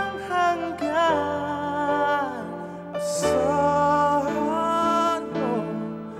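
Live band playing a ballad: a male voice sings gliding, wordless runs over keyboard and steady low bass notes.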